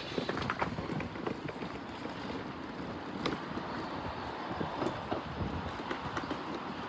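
Commuter train running over the rails, its wheels knocking irregularly over the joints.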